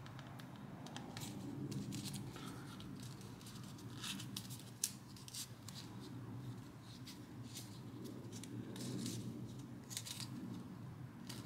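Origami paper being handled and pulled into shape by hand: scattered light crinkles and short crisp paper clicks, with one sharper snap near the middle, over a faint steady low hum.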